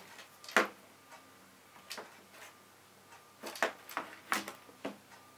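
Light plastic clicks and taps as a plastic toy camera is handled and set down on a table: a sharp click about half a second in, another near two seconds, then a quick cluster of clicks toward the end.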